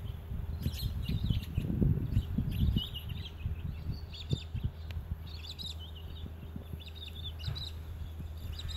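Small birds chirping in short repeated bursts. Underneath are low rubbing and thudding sounds from a knife being worked through thick canvas-reinforced rubber, strongest about two seconds in.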